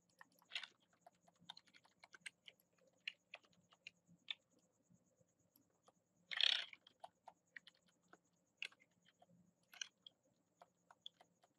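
Faint, irregular clicks of a computer mouse and keyboard being operated at a desk, with one short, louder rustle of noise about six and a half seconds in.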